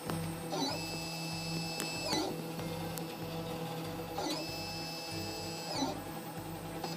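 Solidoodle 3D printer printing a part. Its stepper motors whine in high, steady tones that come on twice for about a second and a half as the print head moves, over the steady hum of the print-head cooling fans.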